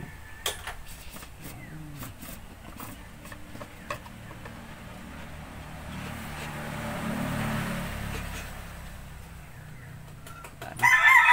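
Scattered light clicks and knocks of hand work on a truck engine's oil filter housing, while a passing vehicle swells and fades in the middle. A rooster crows loudly near the end.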